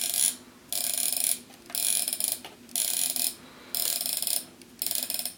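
Copal Model 227 flip clock's alarm going off in regular pulses, about one a second, each a little over half a second long. A soft, calm alarm sound rather than a harsh buzzer.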